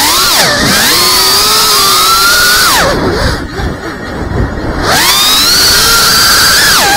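FPV quadcopter's brushless motors whining, the pitch swooping up and down with the throttle. About three seconds in, the throttle is cut for roughly two seconds as the quad drops, leaving mostly low wind noise; then the motors spool back up with a rising whine.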